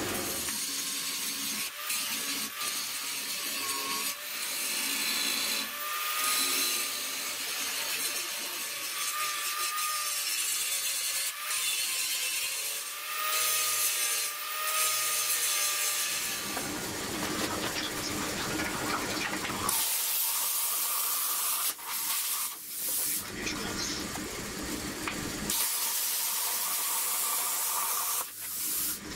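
Power tools cutting and working steel, changing every few seconds, ending in the steady hiss of a handheld plasma cutter slicing through steel plate.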